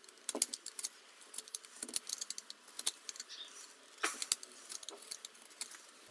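Snap-off utility knife blade shaving down a small wooden insert set flush into a guitar neck: a run of short scraping cuts and clicks, with a few sharper strokes.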